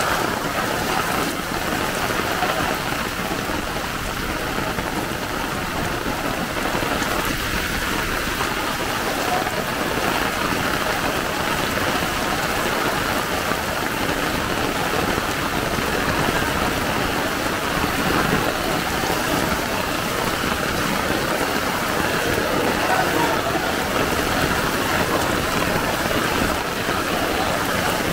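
Heavy typhoon rain pouring steadily onto a flooded street: a dense, even hiss of rain on standing water that doesn't let up.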